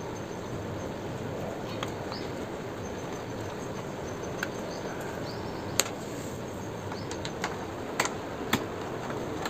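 Scattered sharp clicks and small knocks from an Allen key working the screws of a motorcycle's plastic fairing panel and from the panel being handled. There are several clicks, most of them after about four seconds, over a steady background hiss.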